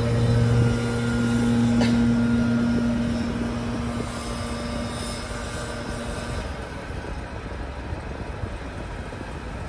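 Vehicle engine hum heard from inside a car, steady at first and fading away over the first six seconds, over a background of road or engine noise. A single sharp click about two seconds in.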